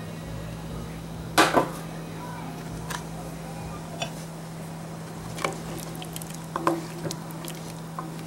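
Spoon and utensil knocks against a cooking pot of soup: one sharp clunk about a second and a half in, then lighter taps every second or so, over a steady low hum.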